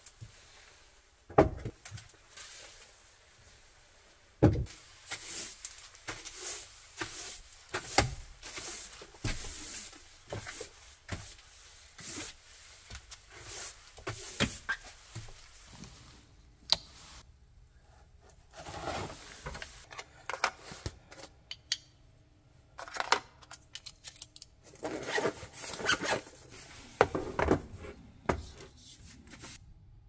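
Rubbing, scuffing and scattered knocks and thumps of someone pulling off boots and moving about inside a camper van, with a few sharp clicks of rocker switches later on.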